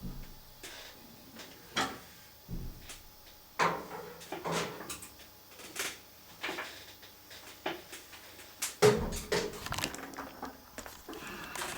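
Irregular knocks, clicks and clatter of objects being handled and moved about on a workbench, with the loudest knock about nine seconds in.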